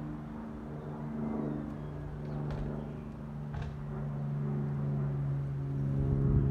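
Steady low hum of a motor vehicle engine running nearby, growing somewhat louder toward the end. Two brief faint high sounds come about midway.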